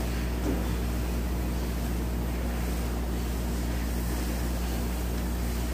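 A steady low mechanical hum over a constant noise bed, with no distinct knocks or clicks standing out.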